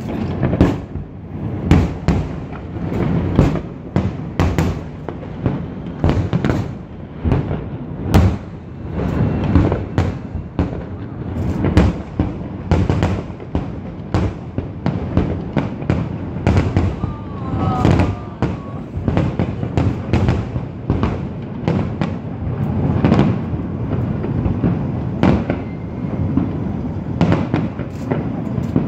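Large fireworks display: a dense barrage of aerial shell bursts, several sharp bangs a second over continuous deep booms. A short whistle rises and falls a little past the middle.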